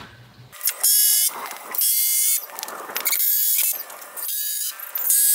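DeWalt cordless drill driving screws into wooden boards in a series of short bursts of motor whine, stopping and starting about once a second.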